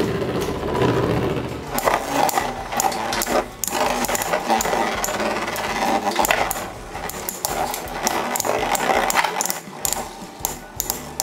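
Two Infinity Nado 3 metal spinning tops whirring and clattering against each other and the plastic stadium bowl. There is a quick run of sharp clicks near the end.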